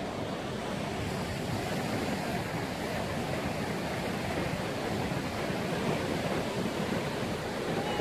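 Ocean surf breaking on a rocky shore: a steady, even rush of waves.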